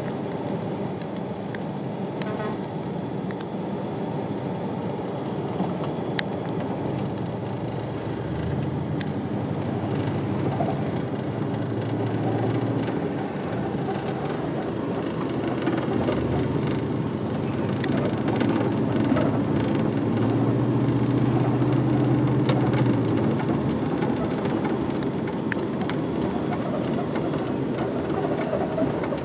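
Road traffic heard from inside a car: a steady low rumble of engines and tyres. A deeper engine hum swells twice, once near the middle and again about two-thirds of the way through.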